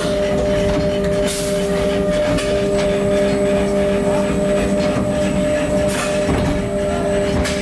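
An automatic core-drill sand blasting machine running, with a steady mechanical hum under a constant hiss and a few brief sharp crackles.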